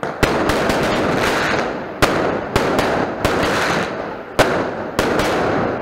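Festival fireworks going off: repeated sharp bangs, each followed by about a second of dense crackling.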